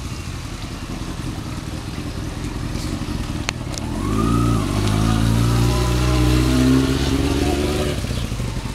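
Yamaha R6 sport bike's inline-four engine running at low revs as the bike rides in and pulls up close. The engine note rises and falls with the throttle, is loudest a few seconds in, and eases off near the end.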